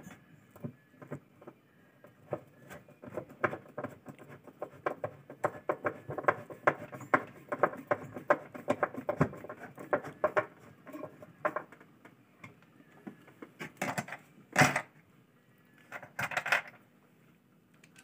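Quick metallic clicks, several a second, from a hand tool tightening the fixing screws of a top-loading washing machine's gearbox. A few louder metal knocks follow near the end.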